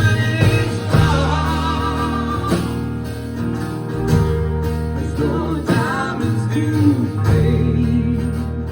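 A live band playing a song: guitars strumming over a steady bass, with a wavering lead melody on top between sung lines.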